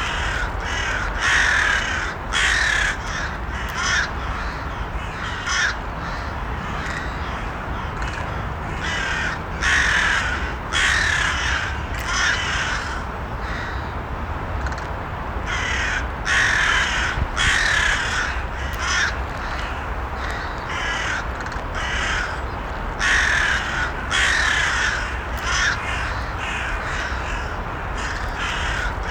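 Crows cawing in bouts, several harsh calls at a time with short gaps between them, over a steady low background rumble.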